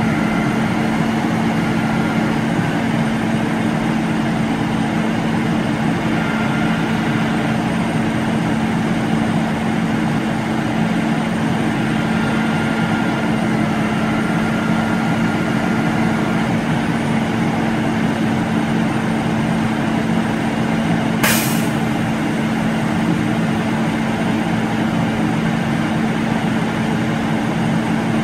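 Heavy truck engine running steadily to power a truck-mounted Hiab knuckle-boom crane's hydraulics, with a constant low drone. About 21 seconds in, a short sharp hiss of air cuts across it.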